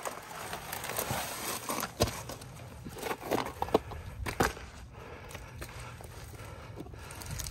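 Boots scuffing and crunching on steep, loose rock and scree during a scramble, with small stones clicking and knocking underfoot. A few sharper knocks stand out, about two seconds in and around four seconds in.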